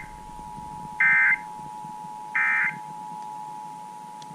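Emergency Alert System two-tone attention signal held steady, cutting off near the end. Over it come short bursts of SAME digital data warble: the tail of one at the start and two more about 1.4 s apart.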